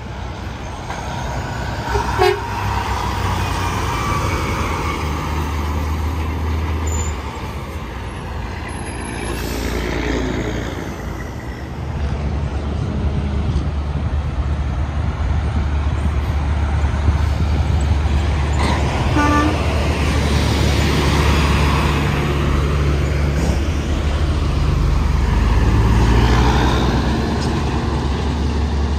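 Heavy trucks passing on an interstate highway, a steady low engine drone that swells as they go by, with a truck horn tooted briefly.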